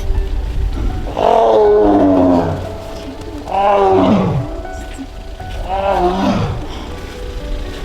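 Amur tiger calling: three long calls about two seconds apart, each sliding down in pitch.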